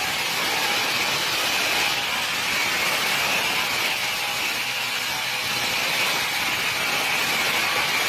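Automatic sawmill machine running steadily as its circular saw blade cuts a log fed between toothed feed rollers, an even, unbroken whirring noise.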